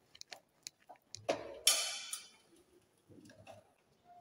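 Small clicks and light scraping of a screwdriver and stiff cable being worked at a distribution board's metal earth bar, with one louder, longer scrape about a second and a half in.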